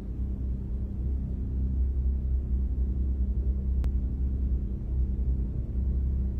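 A deep, steady low drone: a held bass note with a rumble beneath it, the quiet opening of a film-style piece of music.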